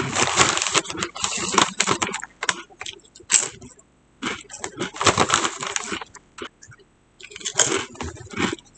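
Crunching of ridged Lay's Wavy potato chips being chewed close to the microphone, in three bouts of crisp crackling: at the start, about five seconds in, and near the end.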